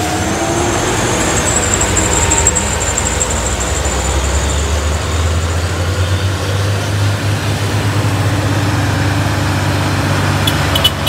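Heavy truck engine running steadily, its low note rising somewhat about halfway through. A few short clicks near the end.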